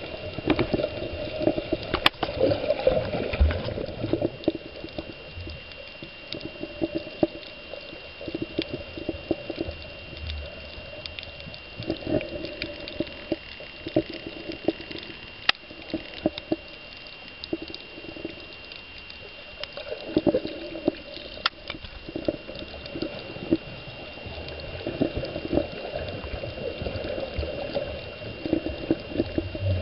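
Muffled underwater sound recorded while snorkeling: water sloshing and bubbling with many scattered sharp clicks, over a faint steady high tone.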